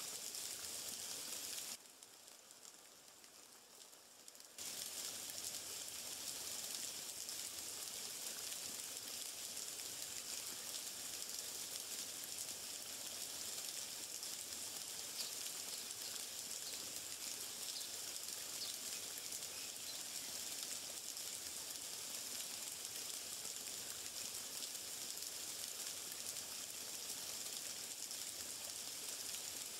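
Steady hiss of water, with a drop to a much quieter level for about three seconds near the start.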